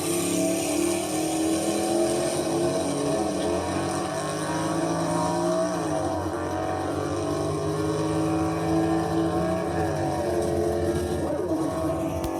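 Car engine running at cruising speed with steady road noise inside a moving car; the engine note dips and rises again twice.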